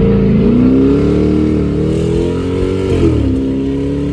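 Chrysler 300's Hemi V8 pulling away under acceleration. The engine note rises, holds steady, drops sharply about three seconds in, then climbs slowly again.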